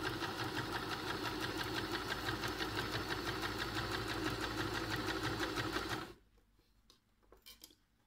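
Electric domestic sewing machine running at a steady fast speed, stitching a straight seam through fabric and a zipper. It stops suddenly about six seconds in, and a few faint clicks follow.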